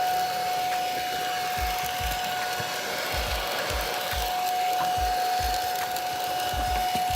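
HONITURE cordless stick vacuum running steadily with a high motor whine, with irregular low thumps as it is worked over a hard surface.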